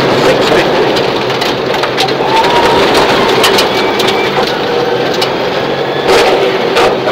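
Subaru Impreza rally car's flat-four engine running hard under load, heard from inside the cabin, over a dense rush of gravel spraying against the underbody and wheel arches on a loose forest track. Sharp stone strikes crack against the bodywork several times, loudest a little after six seconds in.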